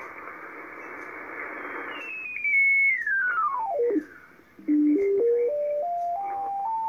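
Icom IC-730 HF transceiver receiving an 80-metre AM signal in sideband mode as its tuning knob is turned. At first there is a band of hiss and garbled audio. About two seconds in, the AM carrier's beat note appears as a clear whistle that falls steadily to a low tone and cuts out briefly. It then climbs back up in small even steps as the dial moves on, its pitch following how far the receiver is tuned off the carrier.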